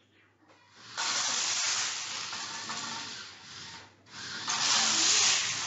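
Loose plastic LEGO bricks sliding and clattering across a wooden floor as they are shoved along by a small robot car's bulldozer blade. The noise starts about a second in, drops away briefly around four seconds, then picks up again.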